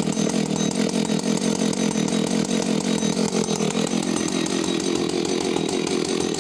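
Husqvarna 285CD two-stroke chainsaw engine running at a steady speed.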